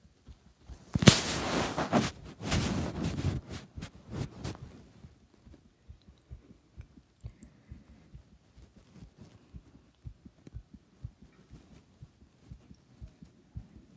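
A human heartbeat picked up by a phone microphone pressed against the chest, beating fast and evenly after exercise. Between about one and five seconds in, a loud rustling scrape of the phone rubbing against skin or clothing covers it.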